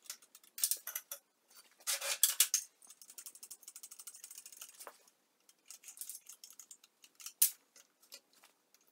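Metal clicks and rattles of a magnetic drill press being handled at its chuck, with a quick run of small ticks between about three and five seconds in and one sharp clack about seven and a half seconds in. The drill motor is not running.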